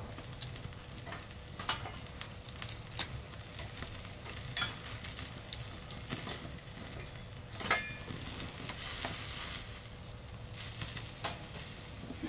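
Sausages sizzling on a small metal grill over a wood-burning gasifier stove, a steady hiss broken by scattered sharp clicks and knocks as they are turned on the grill.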